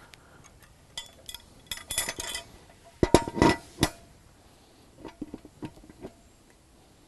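Steel clamp parts and a pipe fitting clinking and knocking together as a pipe line-up clamp is handled and set in place: a run of light metal clicks, then a few heavier knocks, then a few more light clinks.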